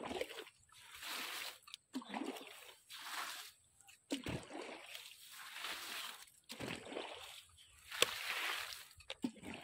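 Water splashing and sloshing in a run of separate strokes, roughly one a second.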